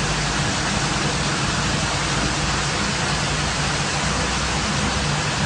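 Industrial carpet washing machine running: a steady rushing noise with a low, even hum underneath.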